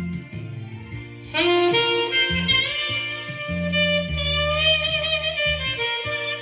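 Saxophone playing a slow, sustained melody with long held notes over an accompaniment with a bass line; a louder phrase comes in about a second in.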